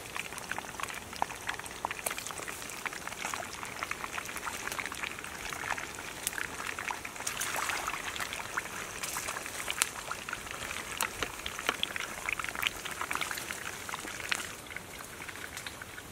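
Whole fish frying in a pan over a wood fire, the fat sizzling with a dense stream of small crackles and pops that thin a little near the end.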